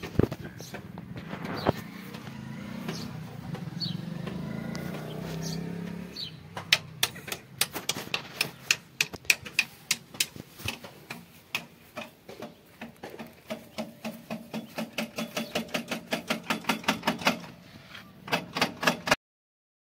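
Hand-lever grease gun being pumped into a tractor's grease fittings: a long run of sharp clicks, about three to four a second, quickening towards the end, starting after a few seconds and stopping briefly near the end before a few last strokes.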